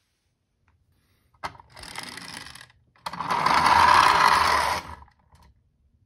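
Toy ambulance minicar set down with a click, then its gears and plastic wheels whirring in two spells as it runs down a plastic slope. The second spell is louder and longer and stops about a second before the end.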